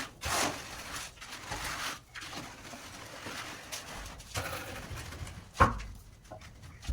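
Scraping and rubbing strokes of a hand tool on cement or masonry, a few in the first two seconds and then quieter, with one sharp knock about five and a half seconds in.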